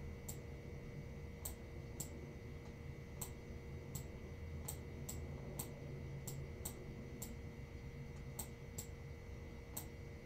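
Light, irregular clicks of a stylus tip tapping and lifting on a tablet screen while handwriting, about twenty in all, over a faint steady electrical tone.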